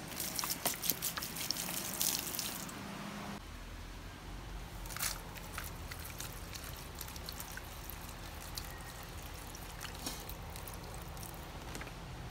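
Water poured from a plastic bottle onto potted plants, splashing and trickling into the soil. It is heaviest for the first three seconds or so, then goes on as quieter trickling with scattered drips.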